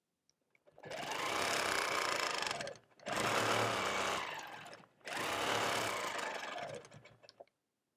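Longarm quilting machine stitching in three runs of about two seconds each, stopping briefly between them.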